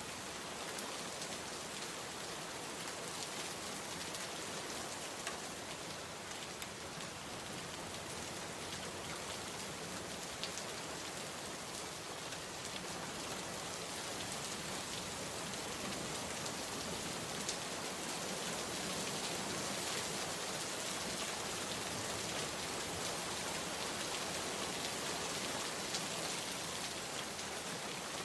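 Heavy rain pouring onto standing water and wet pavement: a steady hiss with scattered sharper drop ticks, a little louder in the second half.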